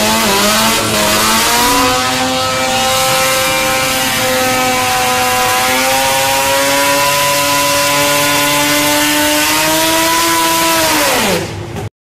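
Car screech sound effect: a car's pitched scream over tyre and engine noise that climbs at the start, holds with a slow rise for about ten seconds, then drops sharply and cuts off just before the end.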